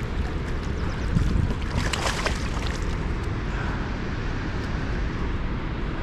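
Wind buffeting the microphone over water lapping against a kayak, with a brief splash about two seconds in.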